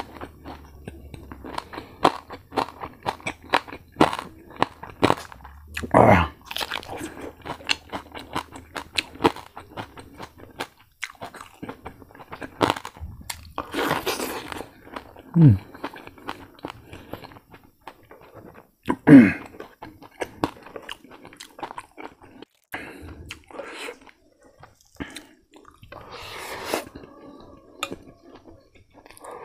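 Close-up crunching and chewing of crispy fried pork belly, a quick string of short crackling bites and chews, with a few brief low vocal sounds falling in pitch from the eater, the loudest about two-thirds of the way in.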